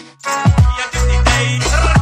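Background music with a heavy bass beat and drum hits. It drops out briefly right at the start, then comes back in.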